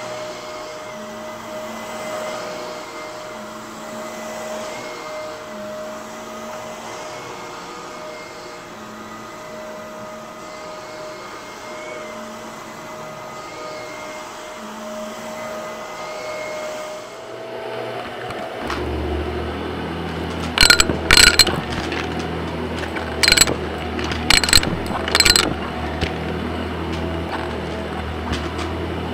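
Blue bagless upright vacuum running steadily over deep carpet with a steady whine. About two-thirds of the way through, a second vacuum with a deeper hum takes over, and coins being sucked up clink and rattle loudly through it, several times in quick bursts.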